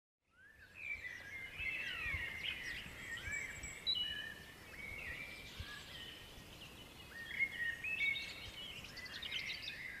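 Several songbirds singing and calling at once, overlapping quick chirps and short whistled sweeps. The birdsong fades in just after the start.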